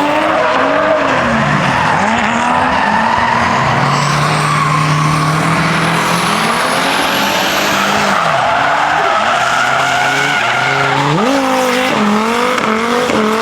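Drift car engine revving hard, its pitch repeatedly dropping and climbing as the throttle is worked, with a held stretch in the middle and quick sharp rev jumps near the end, over the hiss and squeal of tyres sliding on tarmac.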